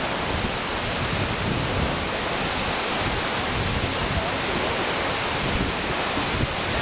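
Multnomah Falls: a tall waterfall plunging into its pool and rushing down the rocky creek below, a steady, unbroken rush of water.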